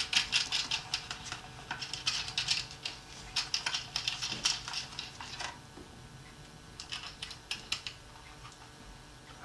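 Rapid light clicking and scraping of thin copper wire being bent and pinched around metal bolts inside a plastic box. Busy for the first half, then a few more scattered clicks around seven to eight seconds in.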